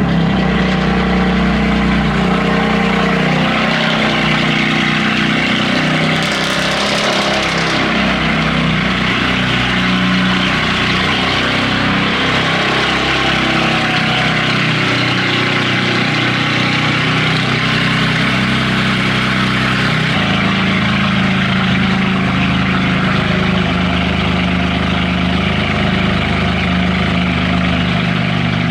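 BMW F80 M3's S55 twin-turbo inline-six idling steadily at fast idle after a cold start, heard through its Eisenmann rear exhaust.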